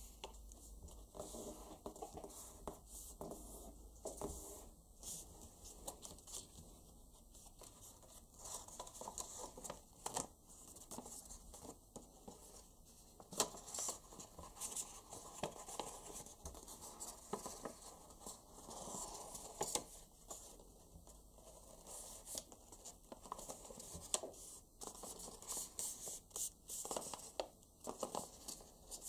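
Sheets of origami paper being folded and creased by hand: irregular rustling and crinkling, fingers scraping along the folds, and the paper sliding on the tabletop, with a few sharper crackles.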